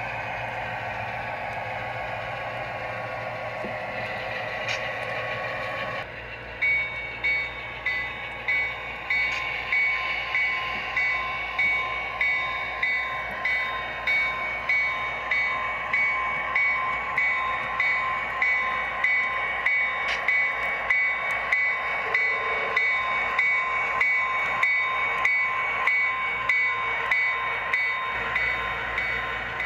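Model diesel switcher sound from a DCC sound system: the engine runs steadily, and from about six seconds in a bell rings steadily, a little under one and a half strokes a second, over the engine.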